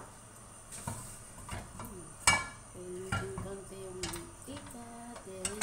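Kitchen utensils and cookware clinking and knocking, a handful of separate sharp clinks with the loudest about two seconds in.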